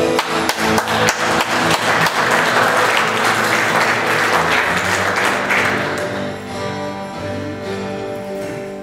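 Congregation applauding over the worship band's acoustic guitar; the clapping thins out and fades after about six seconds, leaving sustained guitar and band chords.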